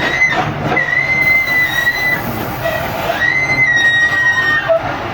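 Excavator working, its engine running under a high-pitched squeal that comes in two long stretches, the second falling slightly in pitch.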